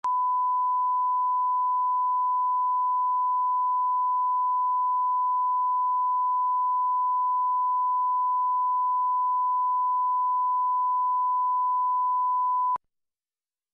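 Steady 1 kHz test tone, a single unwavering pitch, of the kind laid at the head of a broadcast recording for level line-up; it cuts off suddenly about a second before the end.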